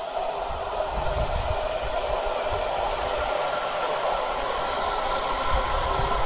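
Washington Metro subway train pulling into an underground station platform, a steady rolling rush of wheels on rail with a constant whine in it, echoing off the vaulted station walls.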